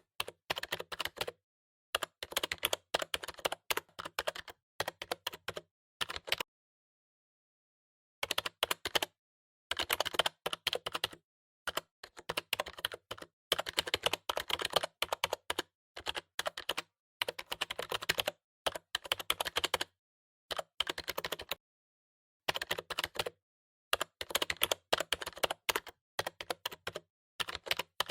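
Typing on a new computer keyboard: rapid runs of key clicks in bursts, broken by short pauses.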